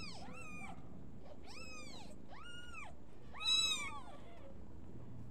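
Newborn kittens mewing: a run of five or six short, thin, high-pitched cries that rise and fall, the loudest and longest about three and a half seconds in.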